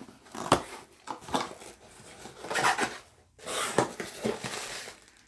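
Cardboard box and packaging being handled and opened by hand: a few sharp knocks and clicks, then two longer stretches of rustling and scraping, starting about two and a half and three and a half seconds in.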